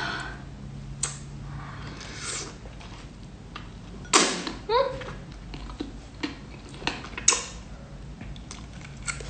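Close-up eating sounds of seafood: wet mouth clicks and smacks scattered throughout, with a louder slurp about four seconds in, followed by a short rising voiced sound.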